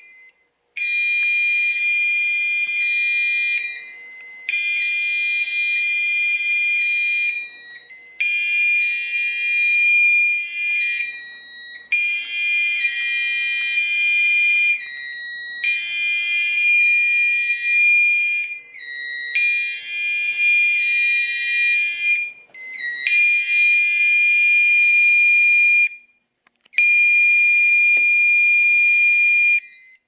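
Gentex Commander 4 fire alarm horn sounding its high-pitched 2400 Hz tone in Gentex sync code, an unusual pattern for this panel. The tone briefly dips in pitch about once a second and breaks off for short pauses every few seconds. It cuts off near the end as the fire drill key switch is returned to normal.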